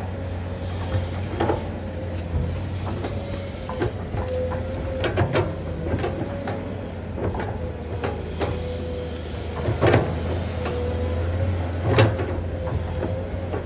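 Komatsu PC210 hydraulic excavator at work: its diesel engine runs steadily under a steady whine, with scattered knocks and clanks from the bucket and boom as it digs, the loudest about ten and twelve seconds in.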